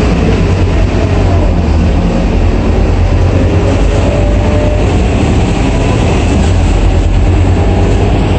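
Scania K230UB city bus under way, heard from inside the cabin: its rear-mounted diesel engine runs loud and steady with a strong low rumble, and a faint drivetrain whine rises slowly in pitch over the first few seconds as the bus gathers speed.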